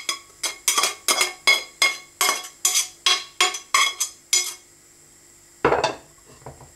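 A slotted spoon knocking and scraping against a frying pan as fried onions are tapped out of it, rapid ringing taps about three or four a second, then a single duller thump near six seconds.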